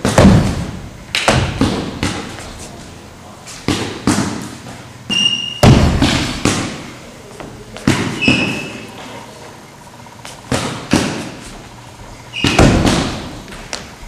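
Sharp thuds and slaps from a Southern Praying Mantis kung fu form: stamping footwork on a wooden floor and fast strikes, in clusters of two or three every second or two, echoing in a large hall. A few short high squeaks come between the impacts.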